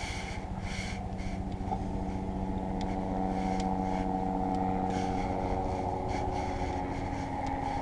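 An engine running steadily, its hum growing a little louder over the first few seconds.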